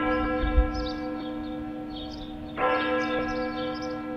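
A church bell tolling slowly: one stroke right at the start and another about two and a half seconds in, each ringing on and fading.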